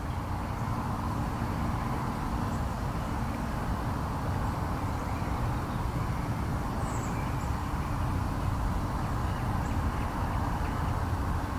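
Steady outdoor background noise, mostly a low rumble with a fainter hiss above it.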